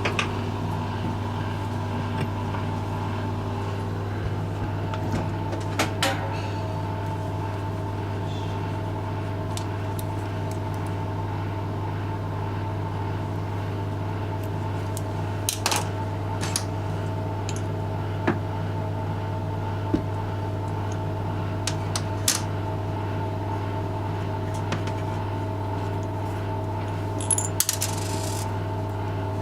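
A machine hums steadily, starting abruptly, while small metal parts click and clink now and then.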